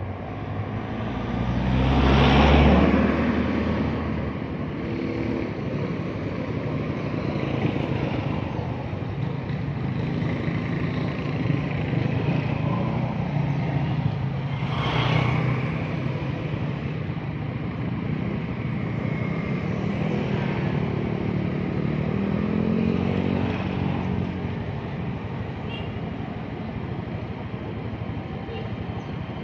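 Motorcycle engine running on the road, its pitch rising and falling as speed changes, under a steady rush of wind and road noise. There is a louder rushing swell about two seconds in and a shorter one around fifteen seconds.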